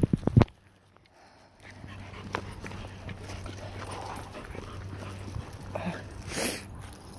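A few sharp knocks in the first half second, then a dog making a few faint, short sounds over a low steady background, the clearest about six seconds in.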